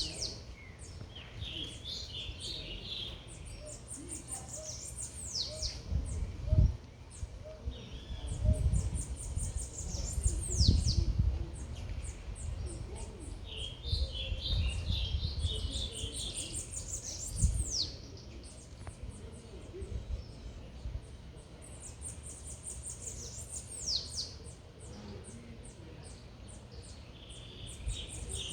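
Songbirds singing in a repeated pattern: a phrase of quick high notes ending in sharp downward sweeps, coming back every several seconds, with lower chattering notes between. Under them runs a low rumble of city noise that swells several times in the middle.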